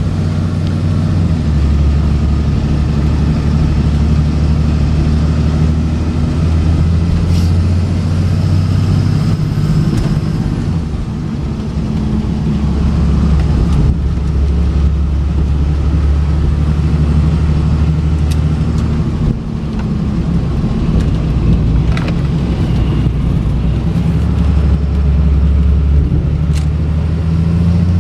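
A Cummins 5.9 litre inline-six turbo-diesel in a Ford F650 truck running under way, heard from inside the cab as a steady low drone with road noise. The pitch of the drone shifts a few times.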